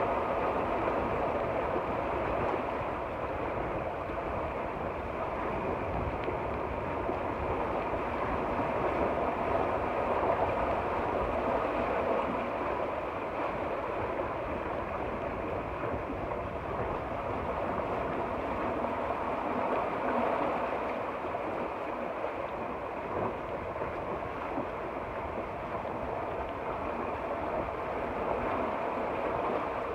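Steady rush of water along a sailing yacht's hull and wind, as the boat moves under sail.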